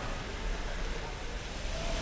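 Steady hiss and low rumble from a steam-hauled passenger train standing at rest, with no distinct knocks or whistles.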